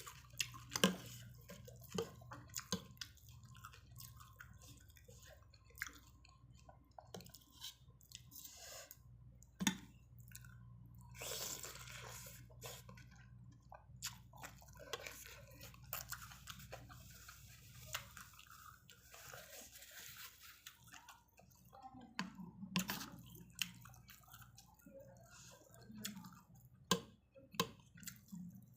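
A person eating noodle soup close to the microphone: chewing with many small scattered clicks and mouth smacks.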